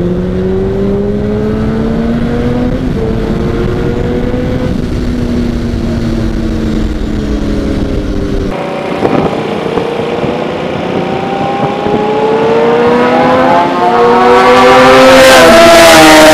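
Inline-four 600cc sport bike engine running hard, rising in pitch as it accelerates. Near the end it grows much louder as the sport bikes ride close past.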